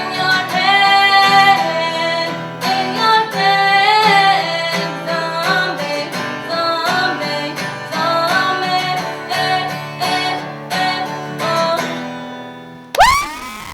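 A woman sings the closing lines over a strummed acoustic guitar, and the song fades out about twelve seconds in. Near the end the audience breaks in with a sudden loud whoop and cheering.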